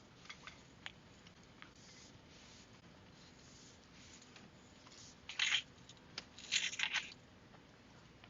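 A few faint clicks over a low hiss, then two short scraping rustles about five and a half and six and a half seconds in.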